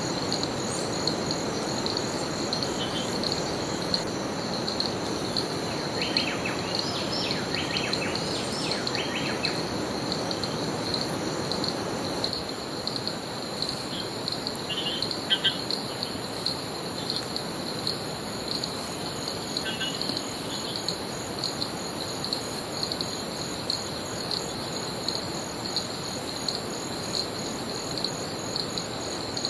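Rainforest insect chorus: a steady, pulsing high-pitched trill that runs throughout, over a steady low rushing background. Short bird calls break in about six to nine seconds in, and again briefly around fifteen and twenty seconds.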